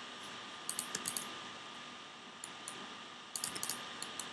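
Computer keyboard typing: keys clicking in three short bursts of a few keystrokes each.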